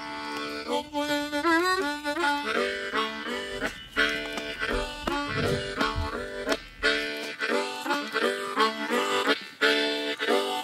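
Music: a harmonica playing, with bending notes about a second in, then short chords repeated in a steady rhythm.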